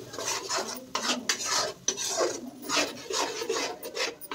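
Flat metal spatula scraping and stirring onion paste around an aluminium kadhai, repeated rasping strokes about two or three a second.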